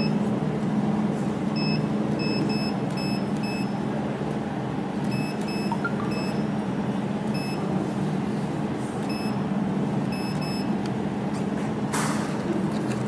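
Touchscreen control panel of a jewelry laser welding machine giving short high beeps as its keys are pressed, in several quick runs, over a steady low hum. A short burst of noise comes near the end.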